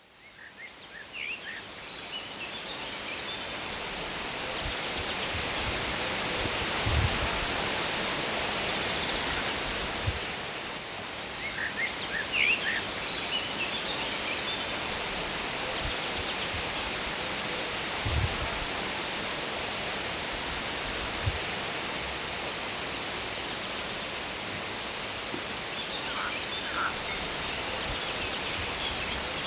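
Lakeside outdoor ambience: a steady rushing hiss that fades in over the first few seconds, with small birds chirping in short bursts three times and a few brief low thumps.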